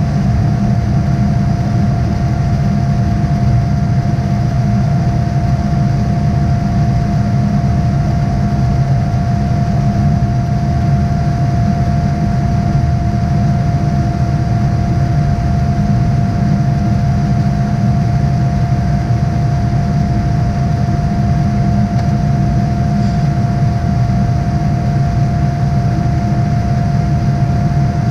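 Cabin noise of a Boeing 787-9 in its climb, picked up by a camera mounted on the window: a steady, loud rumble of engine and airflow with a steady whine from the General Electric GEnx turbofans.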